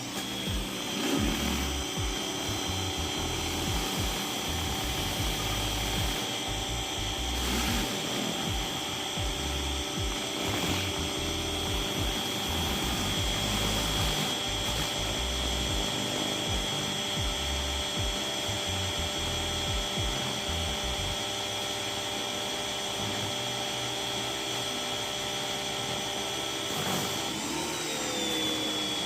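Electric pressure washer running steadily with a high whine, driving water through a rotating surface cleaner across concrete.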